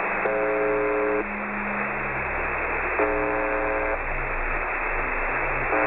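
UVB-76, "The Buzzer", the Russian shortwave station on 4625 kHz, heard through a shortwave receiver: a steady hiss of static carrying a harsh buzz tone about a second long that repeats about every two and a half seconds, three buzzes in all.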